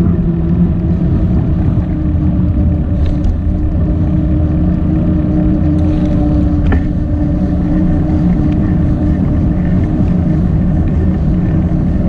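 A small engine running steadily at an even speed, a constant-pitched hum that does not rise or fall.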